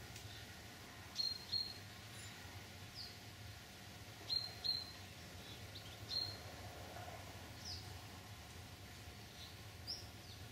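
Bird chirping: short, high, slightly falling notes, several in quick pairs, every second or two, over a steady low background hum.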